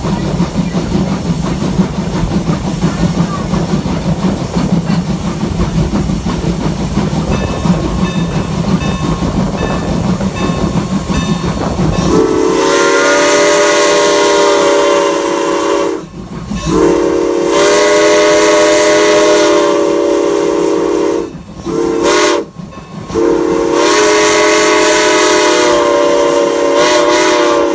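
Steam locomotive No. 475 running along the track, then its whistle sounding a loud chord of several tones in two long blasts, a short one and a long one. This long-long-short-long pattern is the standard warning for a road crossing ahead.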